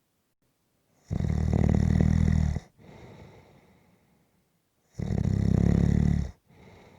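Snoring: two loud, rattling snores about four seconds apart, each followed by a quieter, fading breath.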